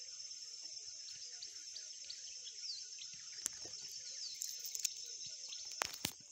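Faint rural field ambience: a steady high-pitched insect drone with occasional short falling bird chirps, and a few sharp clicks in the second half.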